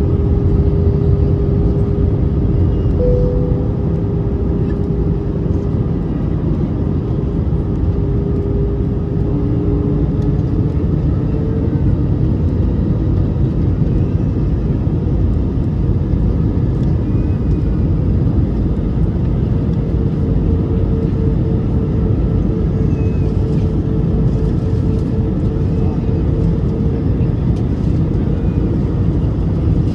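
Jet airliner cabin noise from inside the cabin: the engines and the airflow over the airframe make a steady, loud, low rumble that holds even throughout.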